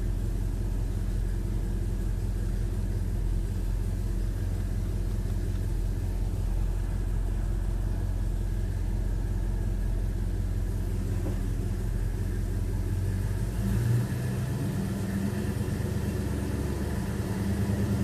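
1969 Dodge Super Bee engine idling steadily with the factory air conditioning running, heard from inside the cabin. Its note shifts about fourteen seconds in.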